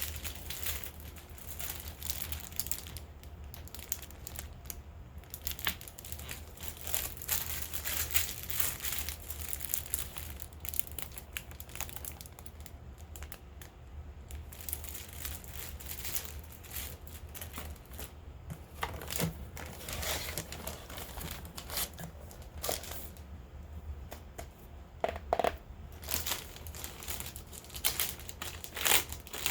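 Packaging being unwrapped by hand, crinkling and rustling irregularly, with a few short pauses.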